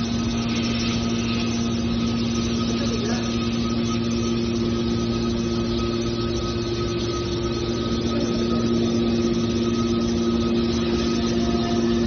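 Hydraulic baler's motor and pump running, a steady hum with continuous mechanical noise; a second, higher hum tone joins about four seconds in, and the lower tone fades near the end.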